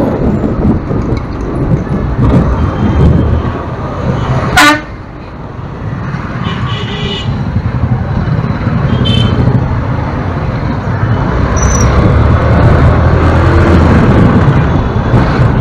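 Street traffic heard from a moving vehicle: a steady low rumble of engine and wind noise. A loud, short vehicle horn beep comes about four and a half seconds in, and a few fainter horn toots sound later.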